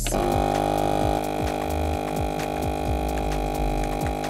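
FoodSaver vacuum sealer's pump starting abruptly and running with a steady hum, drawing the air out of a bag shrunk around a filament spool.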